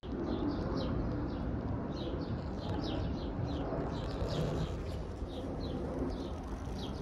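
A bird chirping in short, repeated chirps, two or three a second, over a steady low background noise.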